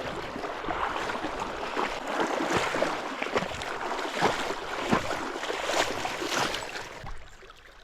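Water splashing and sloshing with irregular sharp splashes as a hooked Murray cod thrashes at the surface while being landed, dying away about seven seconds in.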